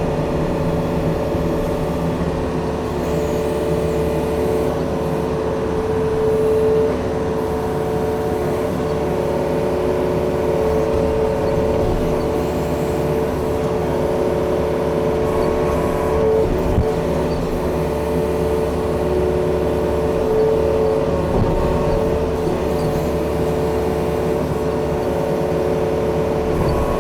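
Yanmar tracked machine's diesel engine running steadily under working load, with an even pitched hum that holds the same note.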